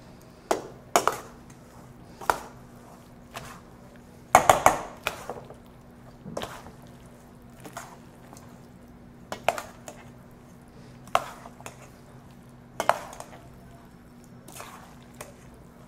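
Metal spoon clinking and scraping against a stainless steel mixing bowl while stirring pasta into thick béchamel sauce. The clinks are irregular, about one every second or so, with a louder flurry about four seconds in.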